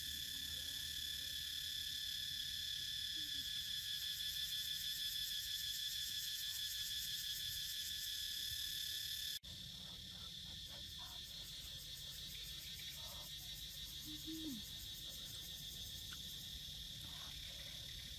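Steady, high-pitched chorus of insects trilling. It drops out for an instant about halfway through and then carries on, a little changed.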